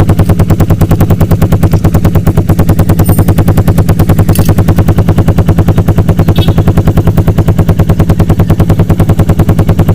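Suzuki Raider 150's single-cylinder four-stroke engine idling through an open Akrapovic muffler with the silencer insert removed. It gives a loud, steady, even popping exhaust note at about ten pulses a second.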